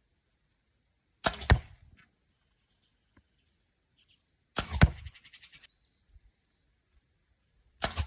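Arrows from a medieval war bow arriving three times, about three seconds apart: each a short rushing whoosh that ends in a sharp hit as it strikes the target. The second is followed by a brief fast rattle.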